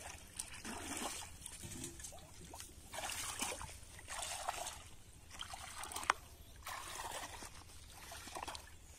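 Splashing and sloshing of shallow water as a person wades, one swish with each step, about once a second. A single sharp click sounds about six seconds in.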